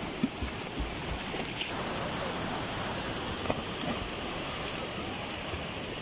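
Swimmers in life jackets splashing and kicking through pool water, over a steady rush of water.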